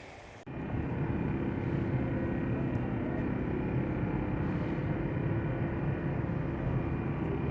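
Boat motor running steadily under way, an even drone that cuts in abruptly about half a second in.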